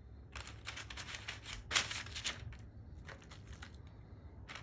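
Parchment paper crinkling and rustling under thick cabbage slices as they are set down and shifted on a parchment-lined baking tray. There is a run of crisp rustles for about two seconds, and a shorter one about three seconds in.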